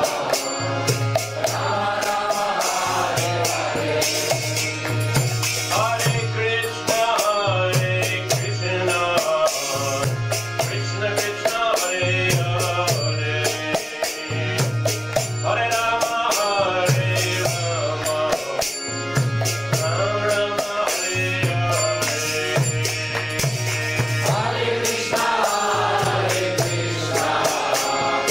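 Devotional kirtan: a group of voices chanting a mantra over an accordion, a mridanga drum and small metal hand cymbals clashing on a steady beat. A low accordion tone repeats in even blocks under the singing.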